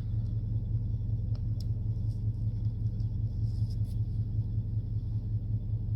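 A steady low rumble, with a few faint light clicks.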